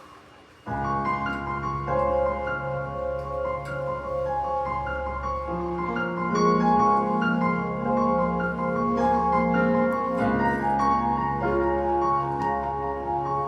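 Live instrumental music begins under a second in: sustained keyboard-like chords and a melody held over a steady low drone.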